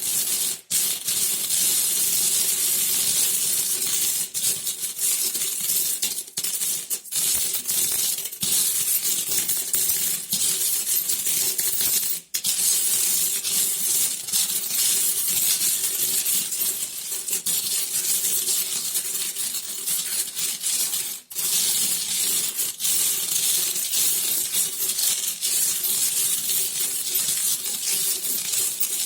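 Many metal coins clinking and jingling against each other in a dense, continuous stream, broken by a few very brief dropouts.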